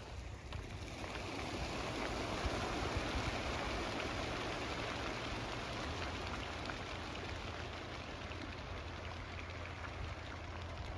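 A steady rushing noise with a low rumble beneath it, swelling about a second in.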